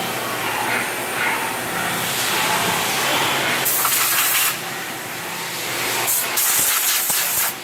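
Workshop machinery running steadily, with two loud bursts of hissing about three and a half seconds in and again near the end.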